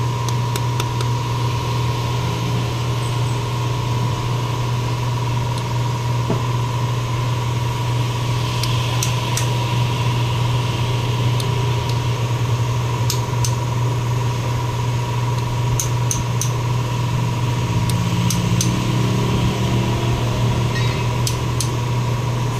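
A steady low mechanical hum with a thin high tone held above it, and scattered light metallic clicks from hand tools at the differential's axle seal.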